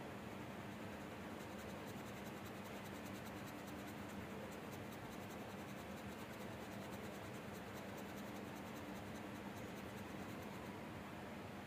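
Coloured pencil scratching on paper in fast, even back-and-forth strokes as an area is coloured in. The strokes start about a second in and stop near the end, over a faint steady hiss and hum.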